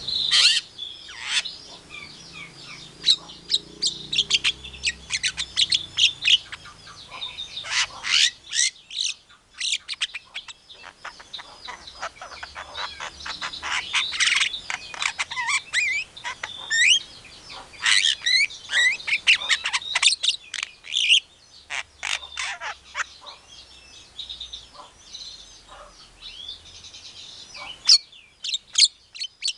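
Javan myna (jalak kebo) singing a fast, varied stream of short chirps, whistles, pitch glides and harsh squawks, with brief lulls between bursts.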